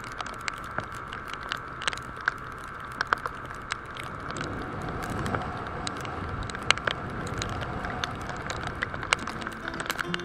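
Aprilia SR150 scooter's single-cylinder engine running steadily at about 100 km/h on a wet highway, mixed with steady wind rush and many sharp ticks of raindrops hitting the on-board camera.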